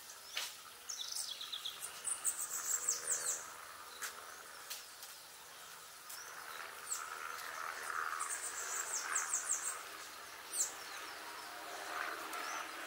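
Birds calling in a park: scattered high chirps and two quick runs of rapid high notes a few seconds apart, over a steady background hum.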